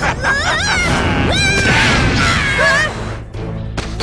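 Animated fight-scene soundtrack: dramatic music under crash and impact effects, with wavering shouts and cries, as a character is knocked skidding across dirt.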